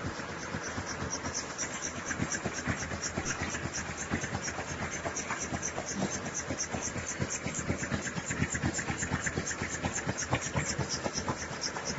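Facial tissue folding machine running, a steady mechanical clatter with a fast, even beat of about four clacks a second.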